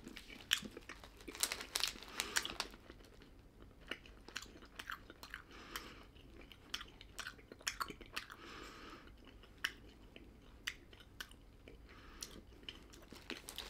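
Mouth chewing crunchy puffed rice snack: a string of small crisp crunches, busiest in the first few seconds and thinning out after.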